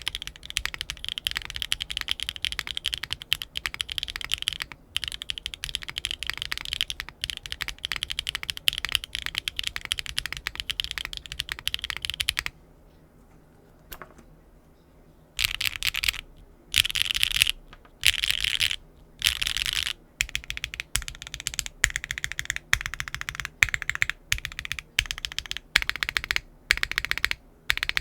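Neo65 gasket-mount mechanical keyboard with HMX Lotus linear switches on a carbon fibre plate, no foam and GMK keycaps, being typed on fast with a clacky sound. Continuous typing stops about twelve seconds in. After a pause of about three seconds with one lone keystroke, short bursts of rapid keystrokes follow.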